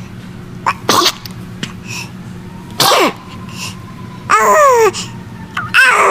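Baby sneezing several times in quick succession: two short, sharp sneezes, then two longer ones ending in a high, falling voice.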